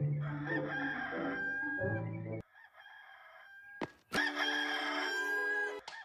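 Rooster crowing, from the Hollywood Edge 'Bird Rooster 2 Crow' stock sound effect, heard twice. The first crow cuts off abruptly about two and a half seconds in; the second starts about four seconds in and stops just as suddenly near the end.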